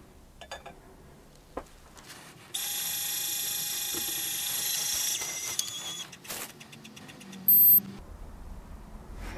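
Lyman Gen6 electronic powder dispenser's motor whining steadily as it throws a 30-grain charge of Alliant 2400, stepping down to a slower, quieter trickle about halfway through and stopping. A few faint clicks come before it as the pan is set on the scale, and a single short high beep near the end signals the charge is complete.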